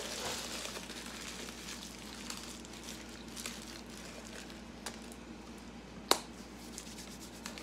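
A person chewing a mouthful of fast food close to the microphone, with small wet mouth clicks, and one sharp click about six seconds in.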